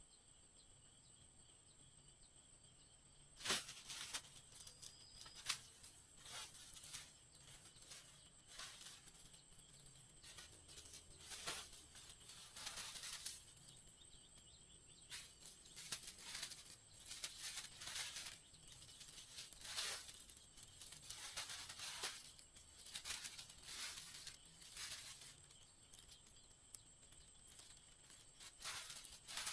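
Faint, irregular rustling and tearing swishes, one every second or two, starting a few seconds in. Under them runs a steady high-pitched insect buzz.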